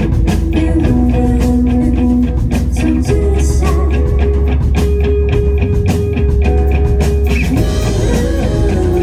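Live rock band playing an instrumental passage: guitar holding long notes that shift every second or two, over bass and a steady drum-kit beat.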